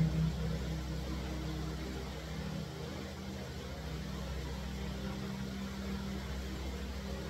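Steady low hum with a faint hiss: the room tone of a quiet prayer hall. The reverberation of the imam's voice dies away at the very start.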